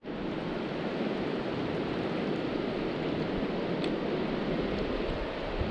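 Steady rush of a shallow, rocky river flowing over stones.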